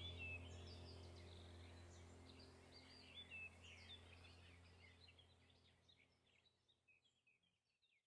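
Faint birds chirping in quick, scattered calls over a low steady hum, the whole track fading gradually toward silence.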